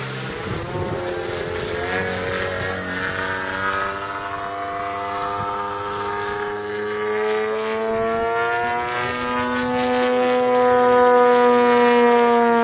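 The engine and propeller of a 33%-scale Krill Sukhoi Su-29 RC aerobatic plane drone overhead. The pitch climbs over the first several seconds, then holds and eases slightly, and the sound grows louder toward the end.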